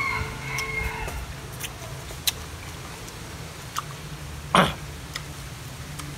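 Close-up eating sounds: chewing a fried chicken wing with scattered sharp mouth clicks and one louder crackle about two-thirds of the way through.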